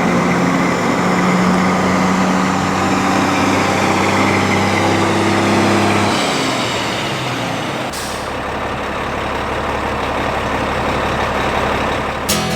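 A heavy engine running steadily. About six seconds in its steady tones fade out, and about eight seconds in the sound changes abruptly to a lower, steady hum.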